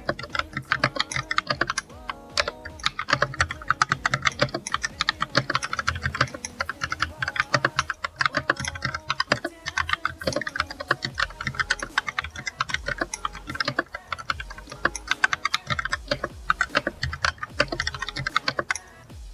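Fast, continuous typing on an Akko 3108 V2 DS Horizon mechanical keyboard: a dense run of key clacks, played as a typing sound test, stopping just before the end.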